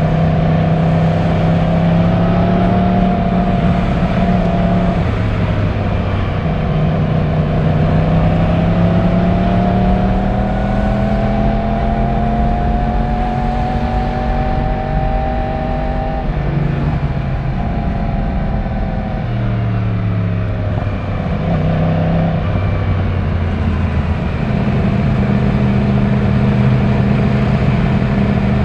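Yamaha YZF-R1 1,000 cc inline-four on its stock exhaust, ridden on the road: the engine note climbs slowly for about ten seconds as it pulls, falls away abruptly as the throttle comes off, and picks up again near the end.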